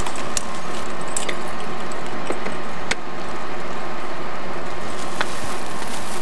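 Steady hum and hiss of the space station module's ventilation fans and equipment, with a few short sharp clicks from copper wire being threaded through the holes of a metal lamp bracket on the spacesuit helmet.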